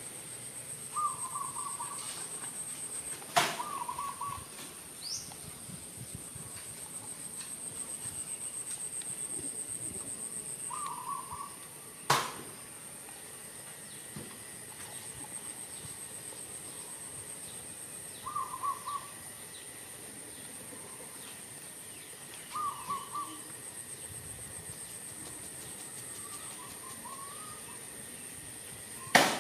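Outdoor bird calls: a short warbling call repeated every few seconds over a steady high-pitched hiss. Three sharp clicks or knocks stand out, near 3 s, near 12 s and just before the end.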